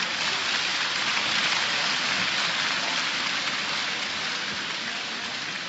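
Arena crowd applauding, a dense even patter of clapping that fades gradually toward the end, as a boxing round closes.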